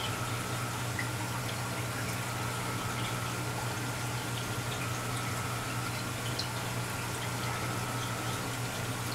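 Reef aquarium equipment running: a steady pump hum under water trickling and bubbling, with faint scattered drips.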